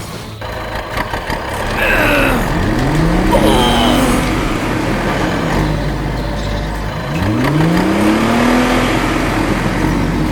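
A DIY mini tractor's engine running, revving up twice with its pitch rising each time.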